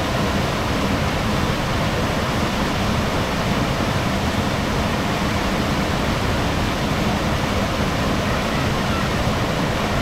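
Waterfall pouring into its pool: a loud, steady rush of falling water.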